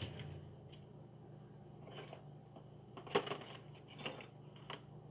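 A metal key and padlock clinking and clicking as the key is handled and tried in the lock: several scattered sharp metallic clicks, the loudest about three seconds in, over a steady low hum.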